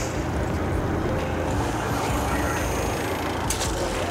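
Steady engine rumble of a fishing boat at sea under a rush of wind and water, with a brief click about three and a half seconds in.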